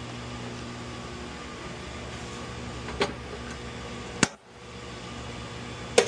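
Steady fan-like machine hum in a small room, with a short click about three seconds in and a sharper, louder click just past four seconds. After the louder click the hum drops away briefly and comes back.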